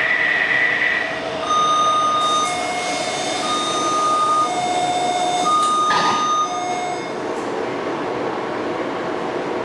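Taipei Metro C321 EMU's traction inverter whine at low speed, breaking into segments: steady tones that jump between pitches about once a second instead of gliding. This is the uneven inverter noise that the uploader reports from car 1152 below about 30 km/h. A short knock comes about six seconds in, and after that there is even train running noise.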